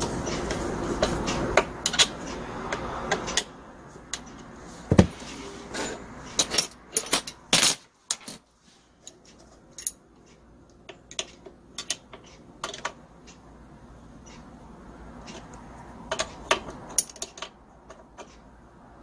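Scattered metallic clicks and clinks of hand tools on a small brush cutter engine being worked on by hand, with a screwdriver and then a wrench on the carburetor fittings. A steady rushing noise fills the first three seconds or so, then stops.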